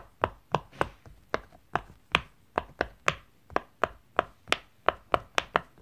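Bubbles of a silicone pop-it fidget toy being pressed one after another by fingers, each giving a sharp pop, about three a second at an uneven pace.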